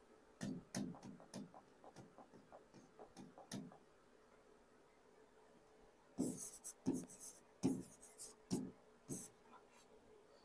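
Faint pen strokes on a writing board: a few soft taps and scrapes in the first second and a half, then a quicker run of short scratchy strokes from about six to nine seconds in.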